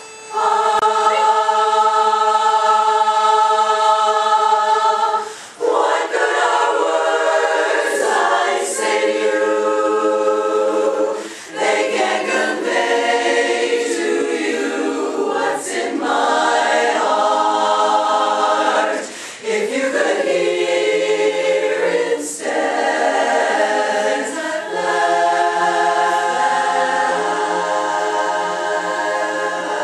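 Women's chorus singing a cappella, holding a long chord in the first few seconds, then phrase after phrase with short breaks for breath between them.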